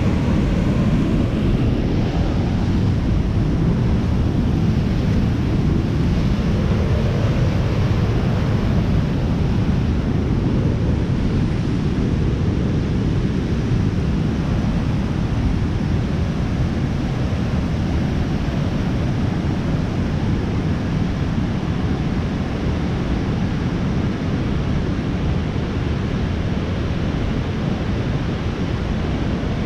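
Rushing water of a waterfall and fast creek: a steady low rush that eases slightly after about ten seconds.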